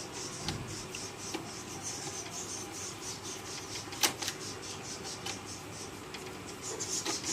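Screws being driven by hand with a screwdriver into an HP LaserJet 1200 printer's plastic frame: a fast, even run of scratchy turning strokes, with a sharp click about four seconds in and a few more clicks near the end.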